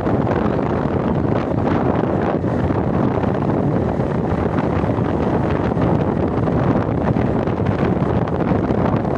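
Steady, loud wind rumbling on the microphone, with no break.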